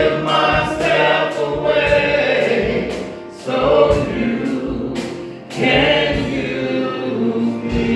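Live gospel worship song: a small group of singers sings together with piano accompaniment, with a sharp, regular beat through the first half and short breaths between phrases.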